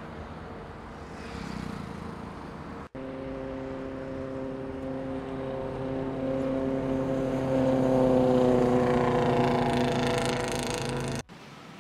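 A low traffic rumble, then after an abrupt cut a sportbike engine held at steady high revs. It grows louder, with a rising hiss near the end, and is cut off suddenly.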